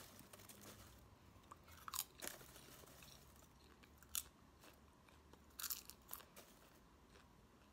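Someone chewing popcorn, with a few faint, scattered crunches.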